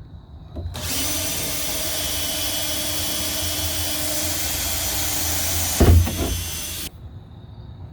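Power drill running steadily for about six seconds, drilling the screw holes for a door speaker's mounting, with one loud knock just before it stops.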